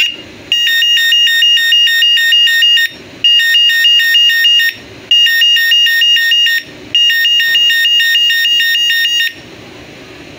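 Electronic horn of a rechargeable bicycle light-and-horn unit sounding in four bursts of rapid beeping, about five beeps a second, with short breaks between bursts. The horn now works properly, its fault having been a dirty switch that has been cleaned.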